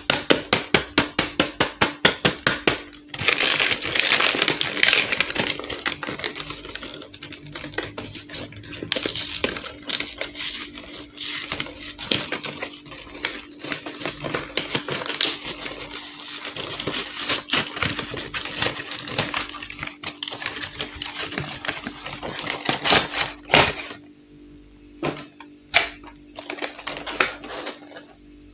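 Fingers tapping rapidly on a cardboard toy box, about four or five taps a second. Then come cardboard rustling and scraping as the box is opened, with scattered clicks and crinkles of the plastic tray being handled. It goes much quieter near the end.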